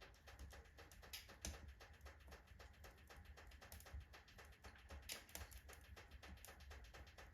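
Oak logs burning in a fireplace, crackling faintly with a dense run of small irregular snaps and a few louder pops.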